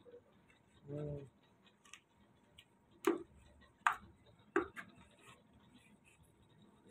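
Three sharp knocks, about three, four and four and a half seconds in, as a lead-acid battery's plate pack is fitted into and knocks against its plastic case.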